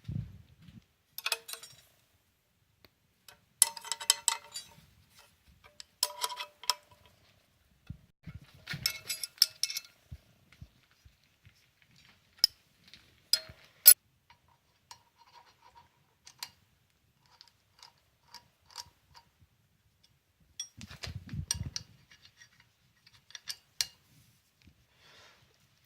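Metal tools and parts being handled: irregular clinks, clicks and short clattering bursts with a brief metallic ring, separated by gaps. No machine is running.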